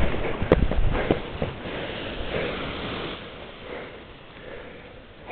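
Wind rush on the microphone drops away at the start as the speedflyer comes to rest on the ground. Then come a few soft knocks and rustling of grass and the wing's risers being handled, with faint breathing.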